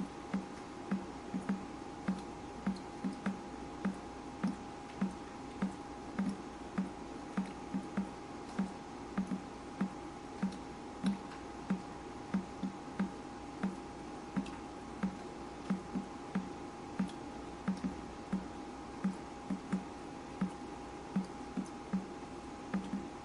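Water dripping steadily, about two drips a second with a slightly uneven rhythm, over a faint steady hum.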